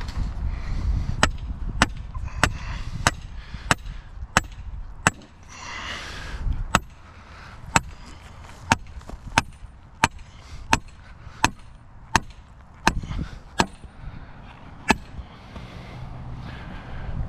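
A series of sharp knocks, about one every two-thirds of a second at first, then slowing to roughly one a second, over a low background rumble.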